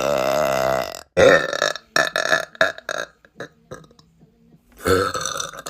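A woman burping: one long, pitched belch lasting about a second, then a second loud burst straight after it and shorter sounds until about three seconds in, with another loud burst near the end.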